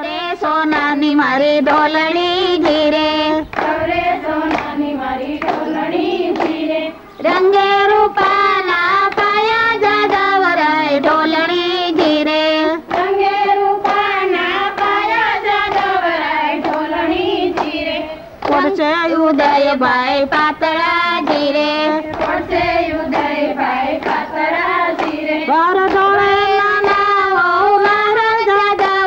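High women's voices singing a song, one melody line held and bending in pitch, over a percussive beat.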